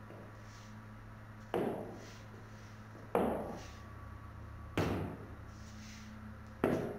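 Heeled dance shoes striking a wooden floor: four heavy steps about a second and a half apart, each with a short ringing echo, over a faint steady hum.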